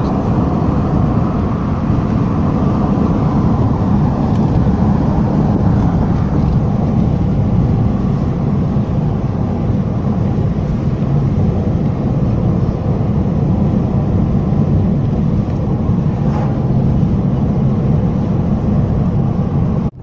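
Steady road and engine rumble heard inside a moving car.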